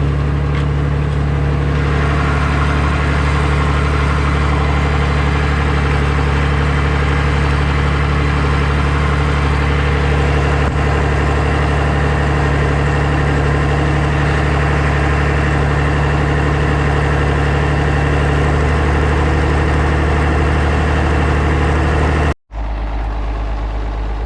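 International Harvester Farmall 560 diesel tractor's six-cylinder diesel engine running steadily. Near the end the sound cuts out for a moment and the engine comes back with a lower note.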